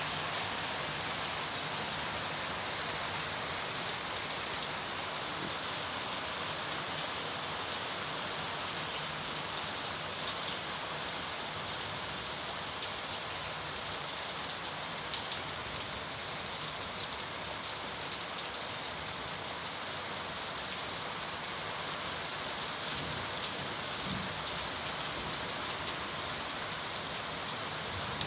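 Heavy rain falling steadily, an even hiss with scattered sharp drop hits.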